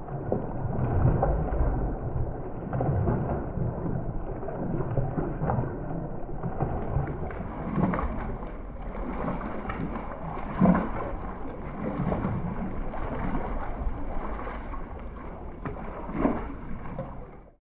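Dull, muffled water splashing and sloshing at the surface, with a few louder splashes in the second half, the biggest about eleven seconds in.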